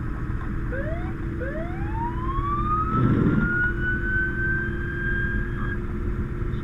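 An emergency vehicle siren winding up: two short rising chirps, then one long rise that levels off, holds and cuts off. A steady vehicle drone runs underneath, with a low thud about halfway through.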